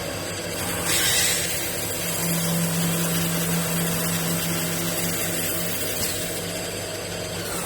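CNC woodworking lathe running and cutting wood: a steady motor hum under a hiss of cutting, which is louder for a moment about a second in.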